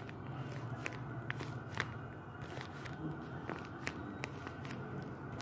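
Handmade paper-and-tape squishy being squeezed in the hand, its taped paper crinkling in irregular sharp crackles.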